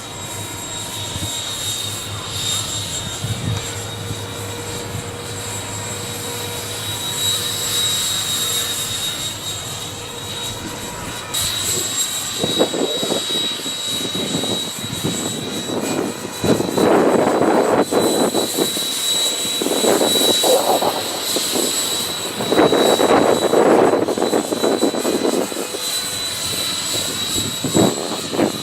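A 64 mm eight-blade electric ducted fan on a brushless motor running at high speed in flight, giving a steady high whine. From about halfway, strong wind gusts rush over the microphone in loud bursts.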